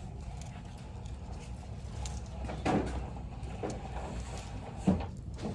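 Clothes being handled and sorted, with a few short knocks, the loudest about three seconds in and near the end, and faint clinks, over a steady low hum of store ventilation.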